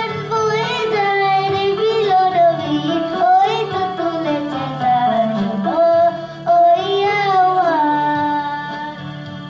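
A young girl singing a Bengali song into a microphone, accompanied by an electronic keyboard.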